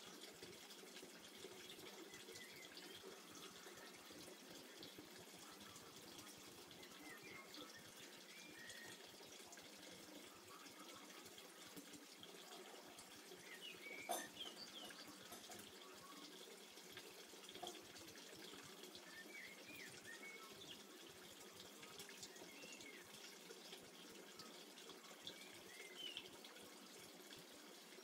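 Faint, steady trickle of water with small drips, and one sharp click about 14 seconds in.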